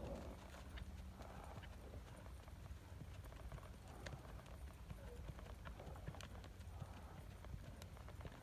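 Faint hoofbeats of a ridden gaited mule moving over dirt and gravel, over a low steady rumble.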